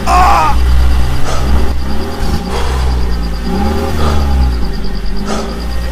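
Heavy vehicle engine running with a steady low rumble, revving so that its pitch rises and falls a few times.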